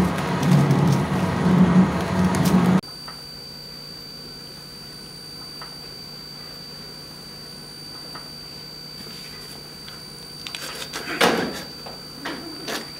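A loud, dense rumbling noise cuts off suddenly about three seconds in. It gives way to a steady low hiss with a thin high whine. Near the end come a few sharp knocks and rustles.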